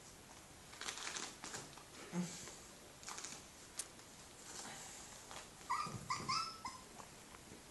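Puppies whimpering: about four short, high squeaks in quick succession about six seconds in, after scattered faint scratching and rustling as the puppies crawl about.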